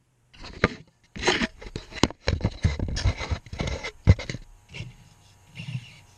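Close, rapid knocks, scrapes and rubbing as a Carisma GT24B mini RC buggy crashes into and jostles the floor-level camera. The sharpest knock comes about four seconds in, and the noise dies down to a few faint bumps near the end.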